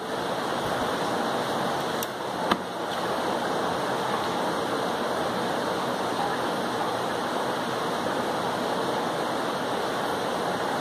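Heavy rain falling outside, a steady rushing hiss, with one sharp knock about two and a half seconds in.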